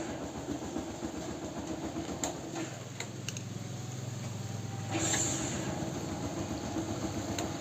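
Hero Passion Pro's single-cylinder four-stroke engine running after an electric start, getting louder for a couple of seconds at the start and again about five seconds in. The grinding that the starter made before its bearing was replaced is gone.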